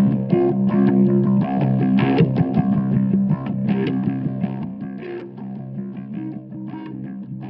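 Background music led by electric guitar with regular strummed chords, getting quieter over the second half.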